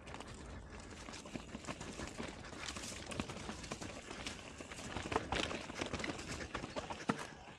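Mountain bike rolling down a rocky trail, tyres and frame clattering over rock with many irregular sharp knocks, heard through a microphone inside a full-face helmet.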